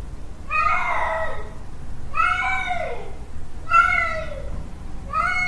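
Male cat yowling its mating call: four drawn-out calls about a second and a half apart, each rising and then falling in pitch.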